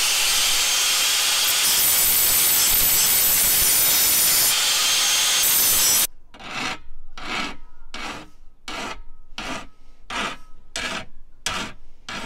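An angle grinder grinds down the end of a stainless steel gaff hook with a loud, steady noise that cuts off suddenly about six seconds in. Then a hand file rasps along the hook's point in about nine even strokes, roughly one every 0.7 seconds, sharpening it.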